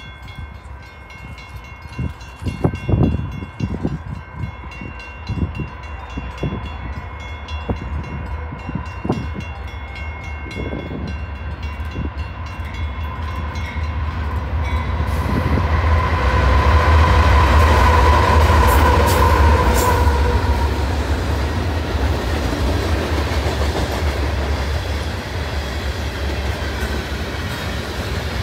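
A Union Pacific freight led by an AC6000 diesel passes at track speed. A steady ringing from the crossing signals carries through the first half. The locomotives' deep engine rumble swells to its loudest about 16 to 20 seconds in, then gives way to the steady rolling and clicking of covered hopper cars.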